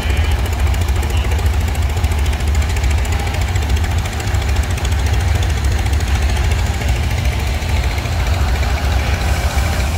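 Antique tractor engine running with a steady, fast, even putting over a low rumble.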